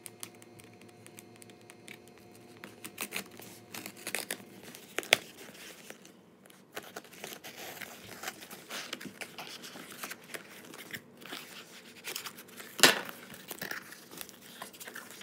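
Packing tape on a cardboard box being slit with a small kitchen knife and torn off, with scattered scratching and crinkling as the cardboard flaps are pulled open. A sharp knock about three-quarters of the way through is the loudest sound.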